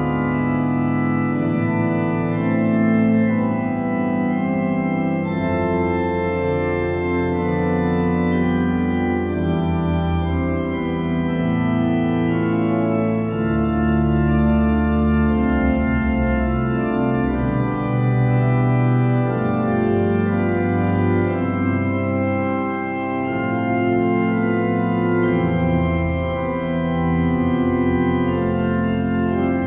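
Organ music: sustained chords that change every second or two over slowly moving low bass notes.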